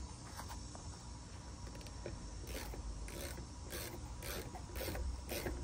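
Socket wrench ratcheting in short strokes as it tightens a pressure-washer nozzle into a surface cleaner's spray bar. The rasping clicks come about three a second, from about halfway through.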